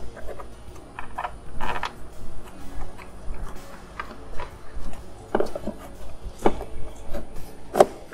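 Plastic cover of a self-propelled lawn mower being pressed and worked into place by hand: irregular clicks and knocks of hard plastic, with the sharpest knock near the end.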